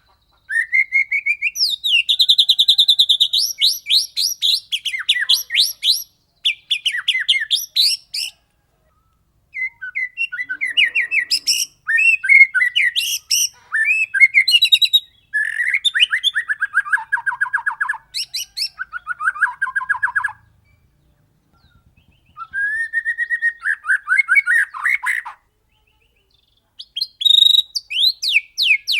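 White-rumped shama (murai batu) singing in fast rolling bursts: phrases of rapidly repeated notes, each a few seconds long, separated by short pauses.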